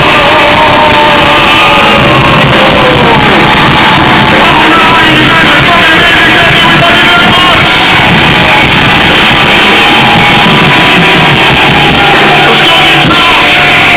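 A live rock band playing at full volume, with a voice singing and shouting over the instruments. It is recorded from inside the crowd, so loud that the recording is pinned near its maximum level.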